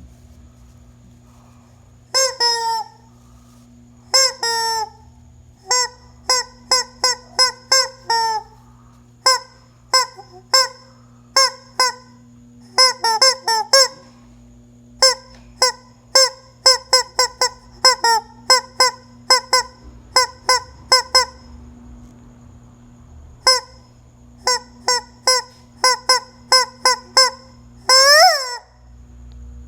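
Chicken cackling: runs of short, loud honking clucks, each dropping slightly in pitch, with pauses between the runs and one long drawn-out call near the end.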